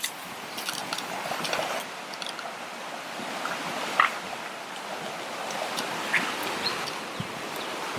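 Running water rushing steadily, with a few short high chirps over it.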